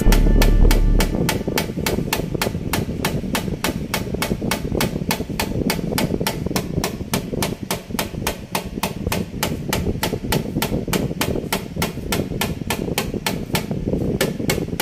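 Rapid, evenly paced tapping, about four to five sharp knocks a second, over a low rumble.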